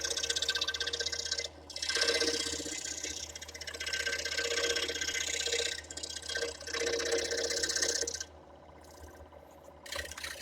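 Scroll saw running, its fine blade stroking rapidly up and down as it cuts through thin pine and maple, with short dips as the work is turned. The cutting noise drops away about eight seconds in, leaving a low hum.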